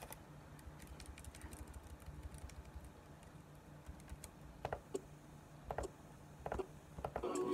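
Quiet keyboard typing and clicking: scattered soft taps, with a few sharper clicks in the last few seconds, over a faint low steady hum.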